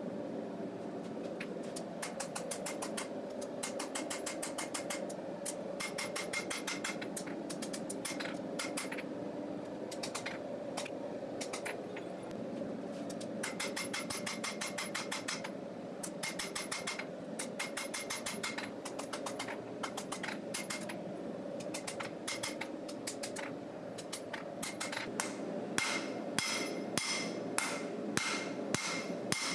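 Forging hammer striking a hot steel knife blank in quick runs of light blows, several a second, each with a short metallic ring, with a few brief pauses; the blows get louder near the end. A steady hum runs underneath.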